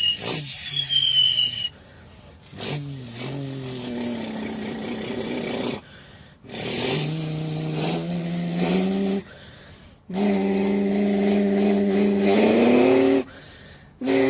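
A person imitating a Zanello tractor engine with the mouth: four stretches of steady, pitched engine drone, each a few seconds long, with short pauses between them. The pitch slides at the start and end of each stretch, and rises near the end of the last one like an engine revving up.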